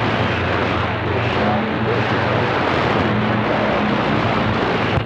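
CB radio receiving a strong, noisy skip signal: loud rushing static with a low hum and garbled voices buried in it, cutting off abruptly near the end as the distant station unkeys.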